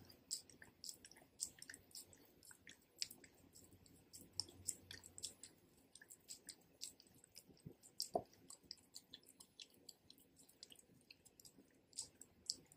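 Pit bull licking peanut butter out of the end of a bone chew: a faint, irregular string of small wet licks and mouth clicks, with one louder click about eight seconds in.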